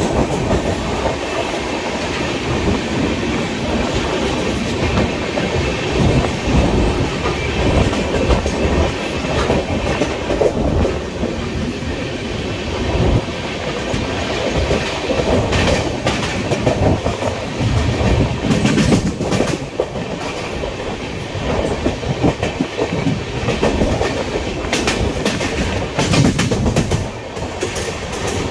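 Express passenger train running at speed, a steady rumble with wheels clattering over the rail joints in irregular clusters.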